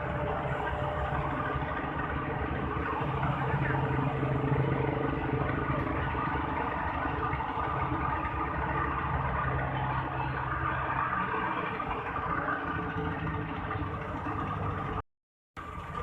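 Rice combine harvester running steadily: a continuous engine drone under a busy mechanical clatter. The sound cuts out completely for about half a second near the end.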